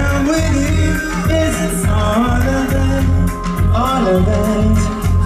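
Dancehall reggae music played loud through a club PA, with a steady bass beat and a man singing over it into a microphone.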